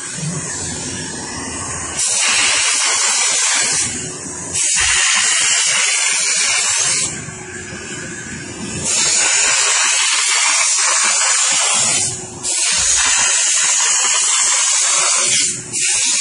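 Steam car-wash machine's nozzle hissing in repeated bursts of two to three seconds as the steam is switched on and off, with a softer hiss in the gaps, while it cleans a car's headliner.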